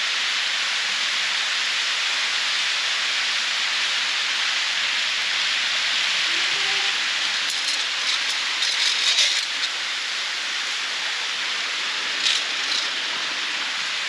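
Steady rushing and splashing of a waterfall inside a cave, with a few short sharp clicks in the middle and once more near the end.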